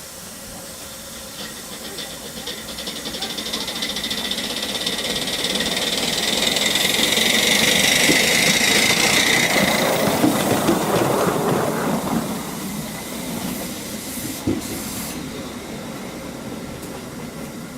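A 7¼-inch gauge live steam locomotive passing by, its exhaust beats and steam hiss growing louder, peaking and then fading away as it runs off. There is a single sharp knock about three-quarters of the way through.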